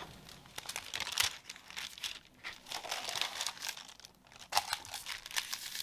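A sheet of parchment paper crinkling and rustling as it is handled and laid over the board, in irregular bursts with short pauses about two and four seconds in.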